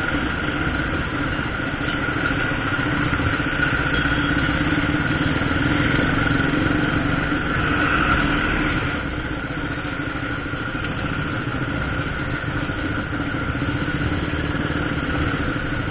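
Motorcycle engine running steadily at low speed in slow, jammed traffic, a constant drone.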